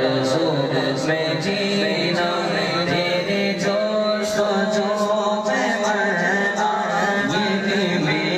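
Men's voices chanting a devotional naat in a drawn-out, melodic line through a microphone and sound system, several voices layered and held without a break.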